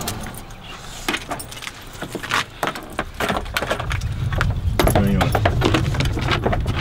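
Dog leash clips and chain leads jingling and clicking as dogs on leashes and harnesses are handled in an SUV's cargo area: a string of sharp metallic clicks over a low steady rumble that grows louder about four seconds in.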